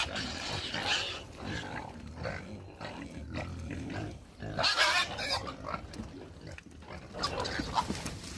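A group of pigs grunting and squealing in irregular bursts, the loudest squeal about five seconds in, as they crowd toward a bucket of feed being poured to them.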